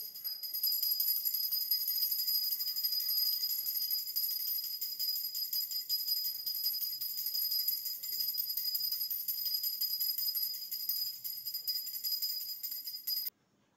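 Continuous high-pitched bell ringing, a steady jingling with several held ringing tones, that cuts off suddenly shortly before the end.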